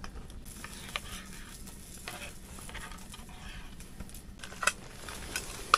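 Rice and water being swished about in a metal mess tin, with a few light clicks from the tin and a sharper knock near the end.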